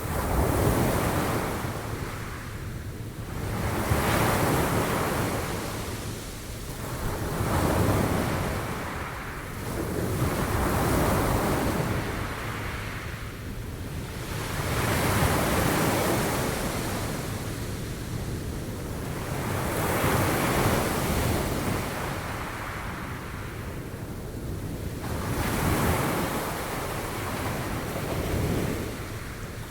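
Sea waves breaking and washing up on shore, the surge swelling and fading in a slow, regular rhythm, roughly every three to five seconds.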